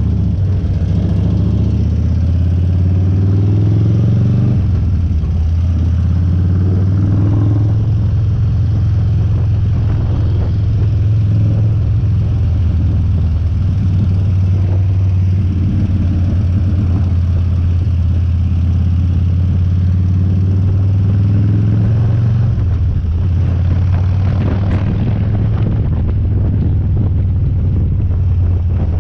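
Harley-Davidson Dyna's V-twin engine running under way on a ride, its note climbing, dropping about four seconds in, then holding steady before falling away again near the end.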